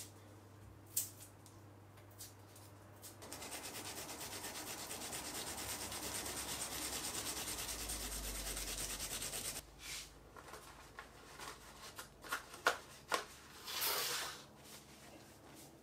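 A garlic clove rubbed back and forth on a flat Japanese metal grater: a fast, even rasping that starts about three seconds in and stops after about six seconds. A few light taps follow, then a short rustle of a plastic bag near the end as fresh ramen noodles tumble out of it.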